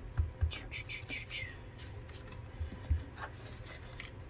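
A round ink-blending tool rubbed and dabbed over a white paper box: a quick run of about five short rubbing strokes in the first second and a half, with a few soft low thumps of the tool and box against the table.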